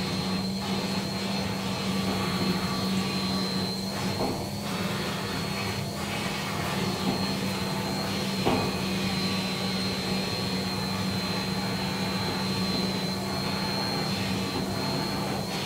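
Vacuum cleaner running steadily while its hose brush nozzle is worked over a cat's fur: a steady low hum with a high whine above it.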